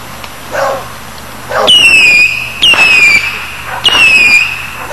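Multi-shot whistling firework shooting off whistles in turn: three loud, high whistles about a second apart, starting a little under two seconds in, each falling in pitch.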